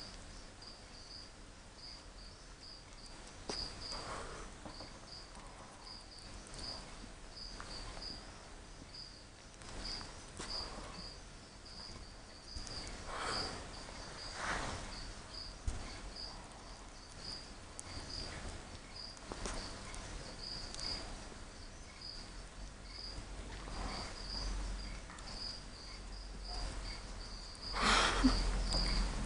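Soft sniffing and rustling as a baby skunk nuzzles a kitten, over a faint high-pitched chirp that repeats about two or three times a second; a louder rustle comes near the end.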